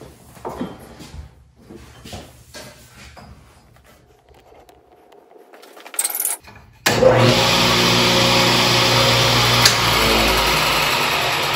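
Ridgid R4512 table saw's motor switched on, starting abruptly about seven seconds in and running at full speed with a steady hum and blade whir, then slowly fading near the end as it spins down; the saw is freshly rewired to run on 240 volts. Before it, light knocks and handling noises.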